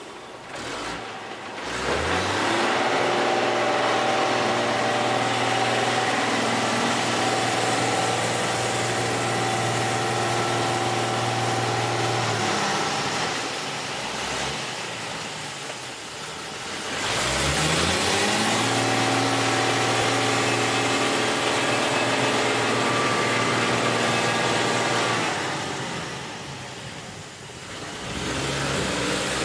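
Csepel D566 truck's diesel engine revving hard under load in deep mud: the revs climb about two seconds in and hold high for around ten seconds, drop back, then climb again and hold for about eight seconds before falling away near the end.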